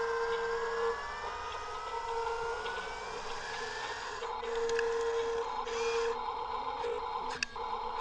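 Huina RC dump truck's tipper motor whining as the bed lifts, its pitch rising slowly, then soil scraping and sliding out of the raised bed about halfway through with a few clicks.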